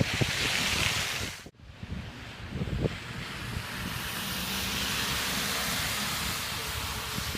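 Winter storm wind blowing steadily, with gusts buffeting the microphone; the sound cuts out for a moment about a second and a half in.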